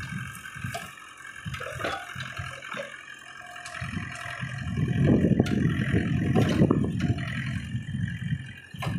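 Tractor engine running while its rear-mounted backhoe digs into brush. A louder, rough low rumble sets in about halfway through.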